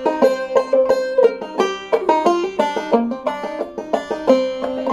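Banjo played clawhammer style: a brisk, even stream of plucked and struck notes over a ringing drone, the melody of a traditional-style old-time tune.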